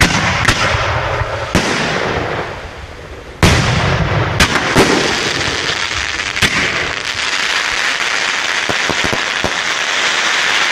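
Fireworks going off: loud bangs at the start and again about three and a half seconds in, then a steady hiss of rising, sparkling shots broken by scattered sharp cracks.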